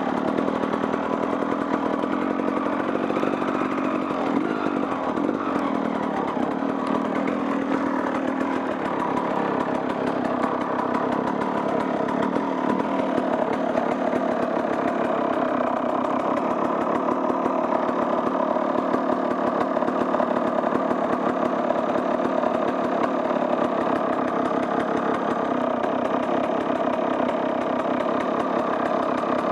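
Off-road vehicle's engine running steadily as it rides along a trail, holding an even pitch.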